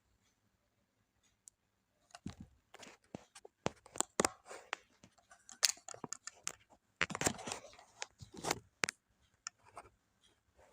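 Irregular clicks, taps and scraping of hands working on a laptop's plastic case and parts during disassembly or assembly, thick for several seconds and thinning out near the end.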